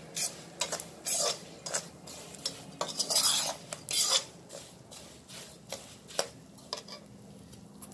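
A metal spoon stirs and scrapes a coarse roasted moong dal and nut mixture around an iron kadai: a run of gritty scrapes against the pan, louder in the first half and quieter toward the end.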